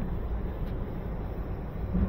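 Steady low rumble of outdoor background noise, with no distinct events.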